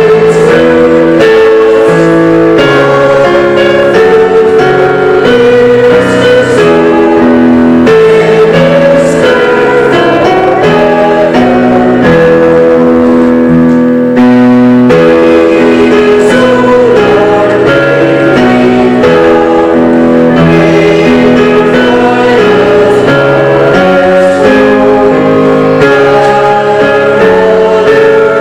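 Worship music: guitar-led accompaniment with voices singing a hymn-like melody, held notes changing about once a second.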